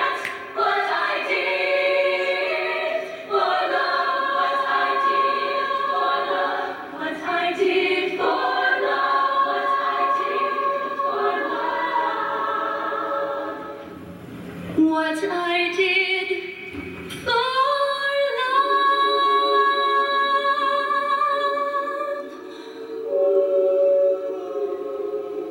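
Female show choir singing in close harmony, holding long sustained chords, with a brief break about two-thirds of the way through.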